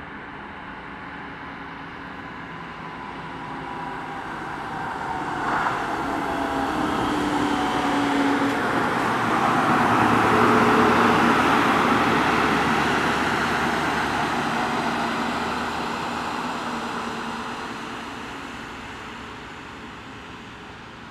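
Scania Streamline truck pulling a loaded trailer drives past on a wet road: its engine and tyre noise grow steadily louder, peak about halfway through as it goes by, then slowly fade away.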